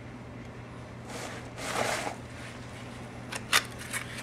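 Hands handling a small cardboard bearing box and tools on a workbench: a soft rustle about a second in, then a few sharp clicks near the end.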